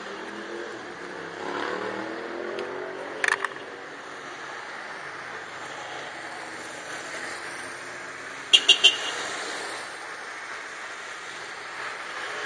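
Car driving, with its engine note rising for a moment as it picks up speed, over steady road noise. Two quick clusters of sharp clicks come through, a short one about three seconds in and a louder one of three or four clicks a little past halfway.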